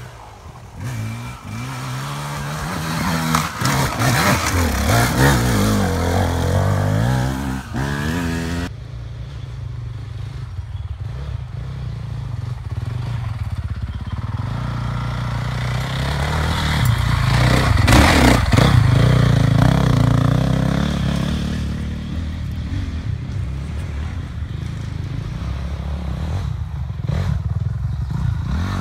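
Dirt bike engines revving up and down, getting louder and fading as bikes come close and move off; loudest about five seconds in and again about eighteen seconds in.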